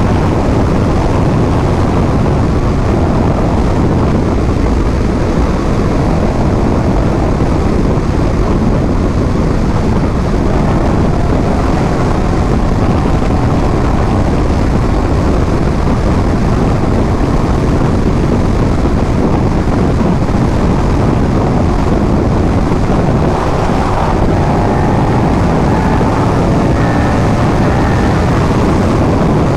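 A motorcycle at riding speed: steady wind rushing over the microphone, with the engine note faintly heard beneath it.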